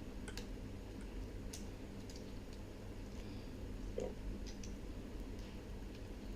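Scattered light clicks and ticks of small parts being handled while the CDJ-900NXS is worked on, over a steady low hum, with a soft knock about four seconds in.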